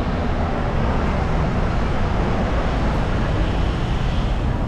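Steady city street noise: a continuous wash of passing road traffic.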